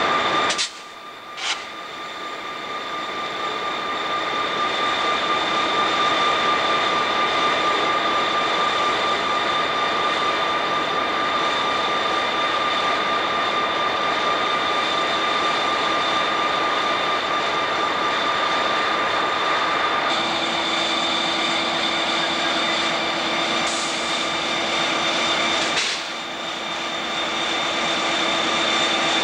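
Diesel freight locomotives passing close by, their engines running with a steady high whine over a broad engine noise. A lower hum joins about two-thirds of the way through. Two sharp clicks come in the first couple of seconds.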